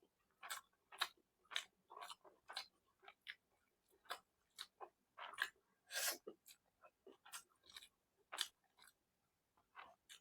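A person chewing food close to the microphone: irregular wet smacks and clicks of the mouth, about two a second.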